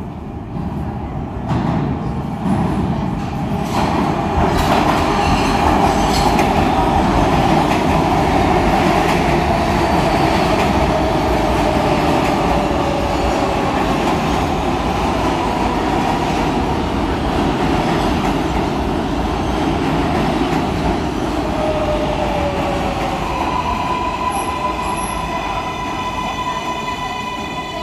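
Kawasaki R188 subway train arriving and braking along the platform. Rumbling wheel and car noise builds in a few seconds in. A whine falls in pitch as the train slows, and a steady high tone sounds near the end as it draws to a stop.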